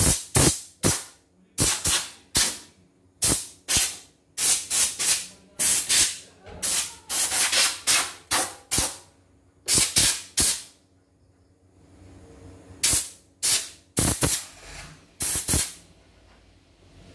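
Handheld compressed-air blow gun firing many short, sharp blasts of air in quick succession, blowing dirt out of an embroidery machine. After a pause of about two seconds near the end, a few more blasts follow.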